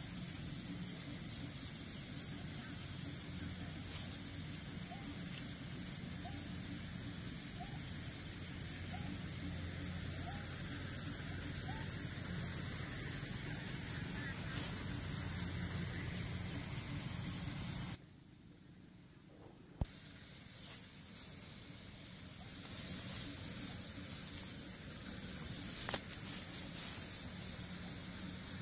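A steady high-pitched night chorus of insects over a low hum, with a faint short rising call repeating about once a second for several seconds in the first third. The sound cuts out for about two seconds a little past the middle.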